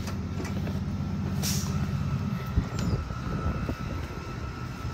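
Streetcar standing at a stop with its doors open, giving a steady low electric hum with a faint high whine; the hum drops away after about two seconds. A brief hiss comes about one and a half seconds in, and a sharp knock follows shortly after the hum stops.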